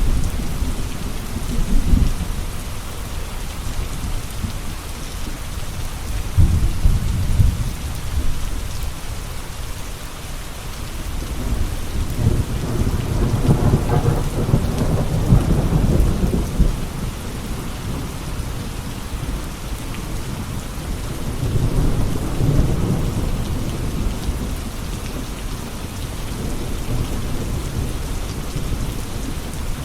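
Steady rain with rolling thunder: low rumbles swell up several times, the longest building and fading over about five seconds in the middle.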